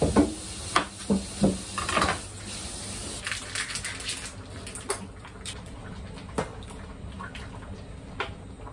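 Kitchen sounds: a few sharp knocks and clatters in the first two seconds, then a pot of curry simmering on a portable gas stove, with occasional small clinks of the spoon as it is stirred.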